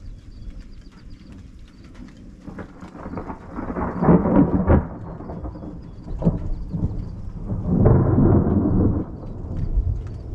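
Thunder rumbling from a passing thunderstorm, swelling up twice: about four seconds in and again near eight seconds. Faint scattered ticks run underneath.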